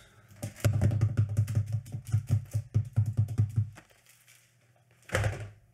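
A drum roll: a fast, uneven run of strikes for about three seconds, then a short pause and one loud hit near the end.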